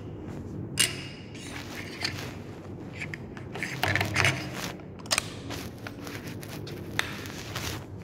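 Plastic clicks and rattles of an air-conditioner remote being handled with its battery cover off and the batteries in place, with several sharp snaps scattered through, over a steady low hum.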